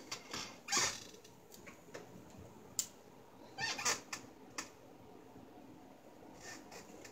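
Handling noises: a few sharp clicks and short scraping rustles, the loudest about a second in and another cluster near four seconds in.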